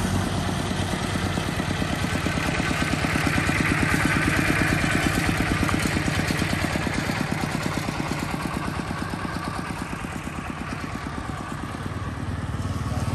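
Single-cylinder diesel engine of a two-wheel walking tractor pulling a loaded cart, chugging steadily as it drives past, loudest a few seconds in and then fading away.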